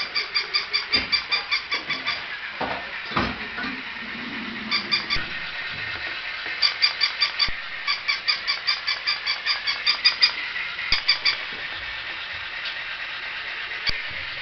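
Walking plush toy dog's electronic barking: quick trains of short, high, squeaky yaps, about five a second, coming in several bursts, with a few soft knocks early on.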